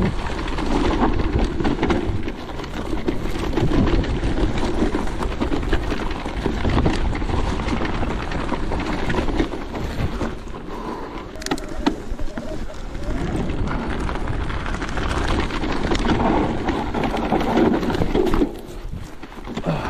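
Wind buffeting the microphone over the rumble of an electric mountain bike rolling over rough trail, with occasional sharp knocks and rattles from the bike.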